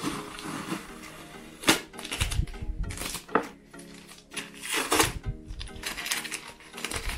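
Paper packing tape being peeled and torn off a cardboard box in about five short, sharp rips, with paper crinkling between them. Background music plays underneath.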